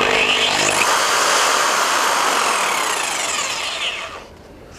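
Bosch GST 8000 jigsaw running with its blade moving free in the air, not cutting. Its whine slides lower, and it stops about four seconds in.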